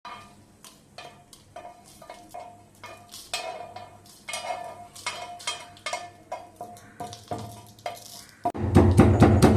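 A spoon stirring and scraping dry spices as they roast in a metal pan, with repeated clinks against the pan. A much louder, dense clattering starts near the end.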